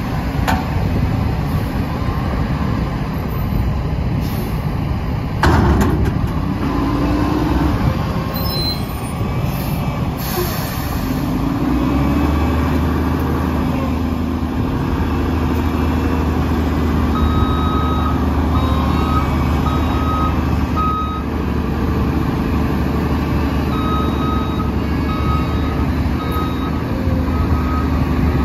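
Heavy diesel engines of a Mack LE front-loader garbage truck and a wheel loader running at a leaf pile, with one sharp loud hit about five seconds in. About halfway through, a steady, deeper engine drone takes over. A backup alarm beeps in two short runs near the end.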